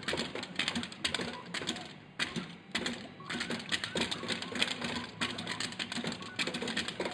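Padded mallet striking the pop-up targets and cabinet of a whack-a-mole arcade game, quick irregular knocks, several a second.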